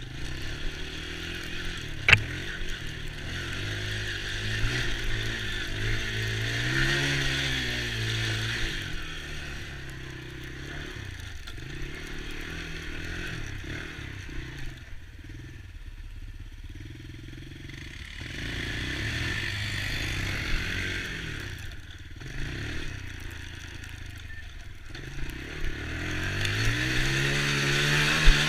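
Small youth ATV engine running, its pitch rising and falling repeatedly as the throttle is opened and eased off. It is loudest about seven seconds in and again near the end, with a sharp click about two seconds in.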